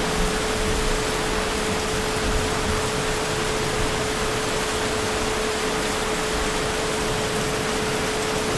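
Heavy rain falling steadily as an even hiss, with a steady pitched tone running underneath.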